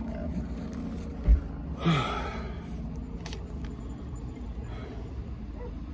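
Low steady rumble of a car running, heard from inside, with a single knock about a second in and a short breath-like sound just after.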